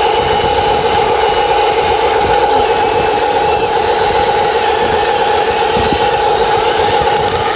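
Radio-controlled model excavator's motor running with a steady, unchanging hum.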